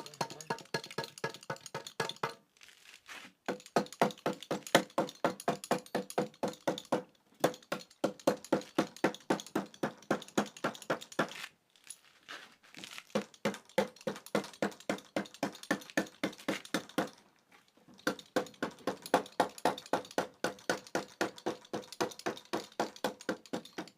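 Rapid hammer blows on wooden lumber, several a second, each with a short ringing note, in long runs broken by brief pauses.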